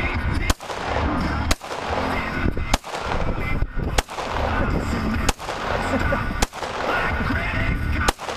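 Glock 17 9mm pistol fired seven times at a steady pace, roughly one shot a second, each a sharp crack.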